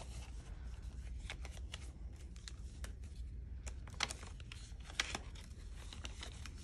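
Paper banknotes and cash envelopes being handled: soft rustles with scattered light clicks and taps, two sharper ones about four and five seconds in.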